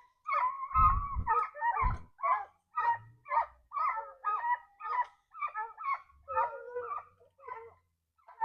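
Dogs barking and yelping in a rapid series, about two short pitched calls a second, with a couple of low thumps about a second in.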